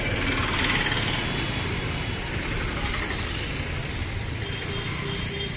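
Street traffic: vehicle engines running, with one passing close and louder in the first second.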